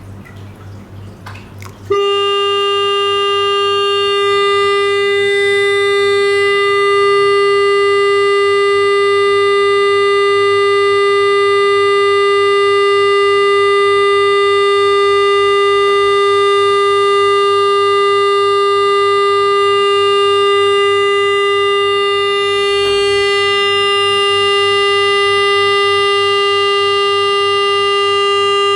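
Loud electronic test tone from loudspeakers, starting about two seconds in and then holding one steady mid pitch with many overtones.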